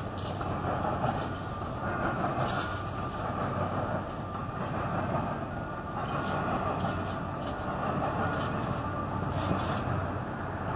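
CN train rolling past a grade crossing: a steady rumble of wheels on rails, broken every few seconds by quick groups of sharp clacks as the wheels cross rail joints.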